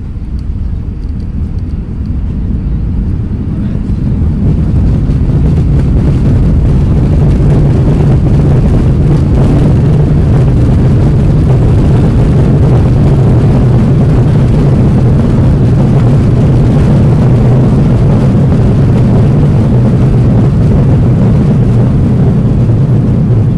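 Jet airliner engines and runway rolling noise heard inside the cabin during the landing roll. The sound swells to a loud, deep, steady roar about four seconds in and holds there.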